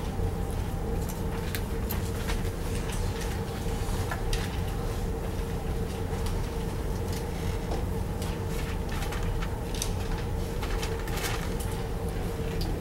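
Steady room hum with a constant mid tone, under scattered short ticks and scrapes like a marker on a whiteboard.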